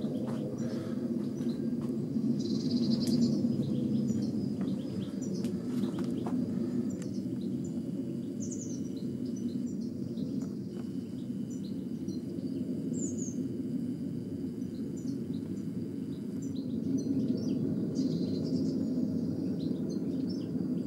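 Small birds chirping with short, scattered calls over a steady low outdoor rumble, with a thin, steady high-pitched tone running underneath.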